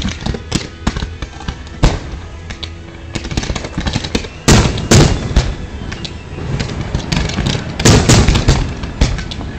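Fireworks going off: a rapid string of sharp bangs and crackles from low comets and aerial shell bursts. The loudest, densest blasts come about four and a half seconds in and again around eight seconds in.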